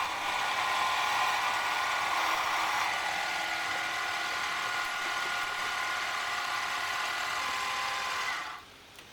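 Mini lathe running with a steady whine of several tones over a noisy hiss while it turns down a hard steel bolt shank, stopping about eight and a half seconds in.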